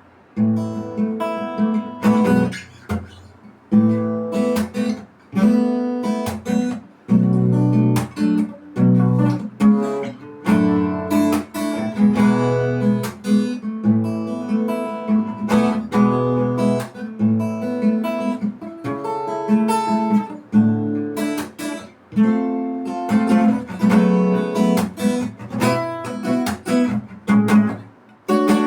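Acoustic guitar being played, chords strummed and notes plucked in a steady rhythm.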